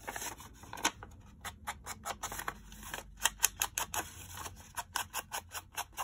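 Foam ink blending tool dabbed quickly against the edges of a paper envelope: a run of short, sharp taps with paper rustling, a few at first, then several a second from about a second and a half in.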